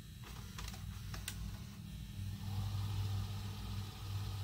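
JVC HM-DH40000U D-VHS VCR fast-forwarding a tape: a steady motor whir with a low hum, growing a little louder about halfway through, with two faint clicks in the first second and a half.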